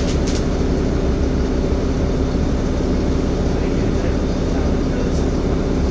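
Steady onboard drone of a Wright Streetcar articulated bus (Volvo B7LA) underway: a low rumble of engine and running gear with a steady hum.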